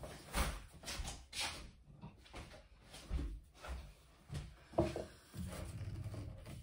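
A kitchen cupboard door opened and shut and a cup taken out: a scatter of light knocks and clicks, with duller handling sounds near the end.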